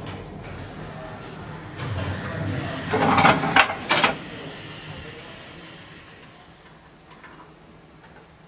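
Steam locomotive firebox door being shut: a loud scraping clatter of metal about three seconds in, then a single sharp clank a moment later as it closes, over a low rumble from the fire.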